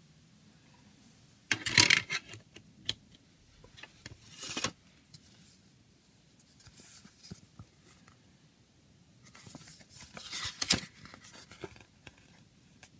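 A CD's paper booklet and plastic jewel case being handled: bursts of paper rustling and scraping with a few light clicks. The loudest burst comes about two seconds in, a smaller one at about four and a half seconds, and another cluster around ten seconds in as the booklet is unfolded.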